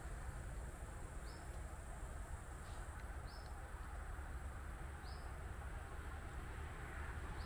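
Steady rush of stream water, with short high chirps repeating every second or two over it and a thin, steady high tone above.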